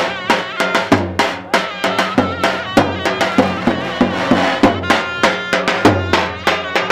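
Davul bass drum and zurna playing halay dance music: a quick, steady drumbeat under a shrill, wavering reed-pipe melody.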